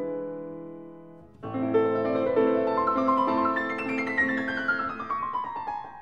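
Background solo piano music: a chord struck at the start and left to fade, then from about a second and a half in a flowing run of notes that steps downward toward the end.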